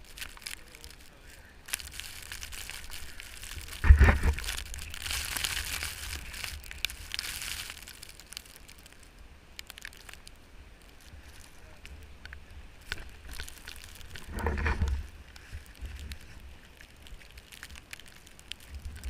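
Wind rumbling on the microphone during a snowboard run, with the hiss of the board sliding over snow. There are two heavy thumps, a sharp one about four seconds in followed by several seconds of louder hissing, and a weaker one near the end.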